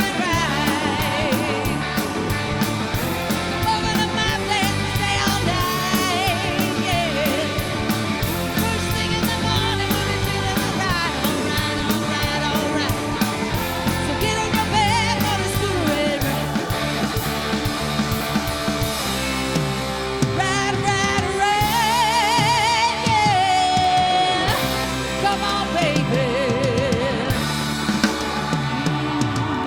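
Rock band playing live, with drum kit, electric guitar and singing. About two-thirds of the way through, a long high note is held with a wavering pitch.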